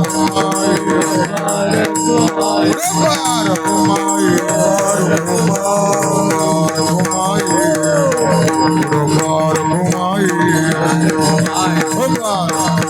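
Marathi devotional bhajan music: steady held drone tones under gliding singing voices, with drums and small hand cymbals clicking a fast, even beat throughout.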